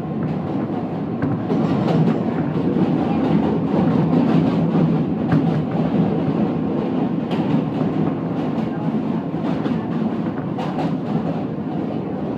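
New York subway train (Q line) heard from inside the car, running across the Manhattan Bridge: a steady rumble with irregular clacks from the wheels on the track, growing a little louder about a second and a half in.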